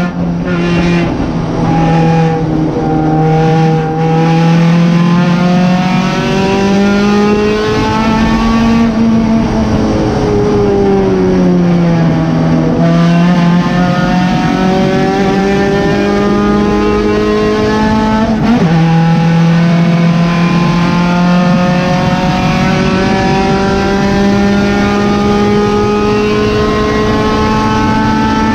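1991 Honda Civic EF hatchback's D16 four-cylinder engine at racing speed, heard from inside the stripped cabin, its pitch climbing slowly under power. About ten seconds in it falls away and then comes back up, and about eighteen seconds in it drops suddenly at a gear change before climbing again.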